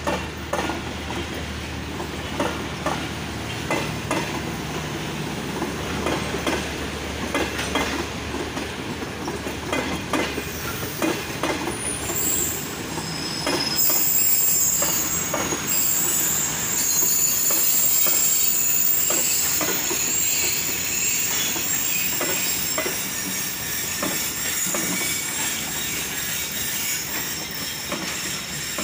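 Tezgam Express passenger coaches rolling slowly past, wheels clicking over the rail joints. From about twelve seconds in, a high metallic squeal from the wheels joins and runs on.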